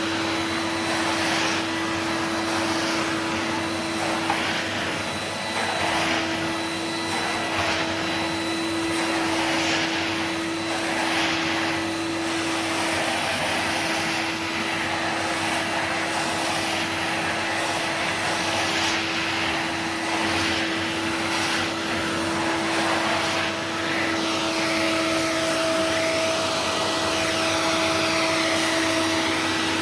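Numatic NVR375 vacuum cleaner running steadily while vacuuming, a motor whine over a rushing of air. The air noise swells and dips about every second and a half.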